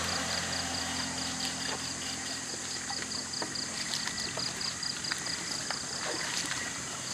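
Shallow stream water running over rocks, steady throughout, with scattered small clicks and splashes. Over it, a high chirp repeats about four times a second.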